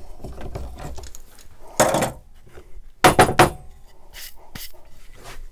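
Metal bar clamps and wooden boards being handled on a workbench: light knocks and rattles, with two louder clatters about two and three seconds in.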